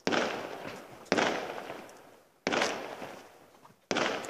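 Fireworks exploding in the sky: four sharp bangs about a second and a half apart, each fading away over about a second.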